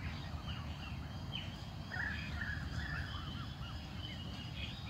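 Black swan cygnets peeping: many short, high, arching calls, one after another, from several young birds at once.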